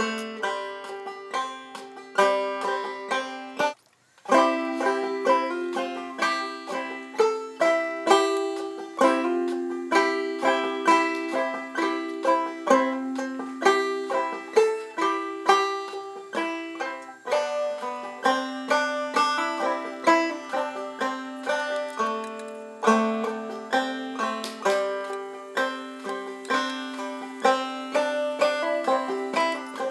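Background music: a fast banjo-led instrumental of quick plucked notes, in a bluegrass style. It breaks off for a moment about four seconds in.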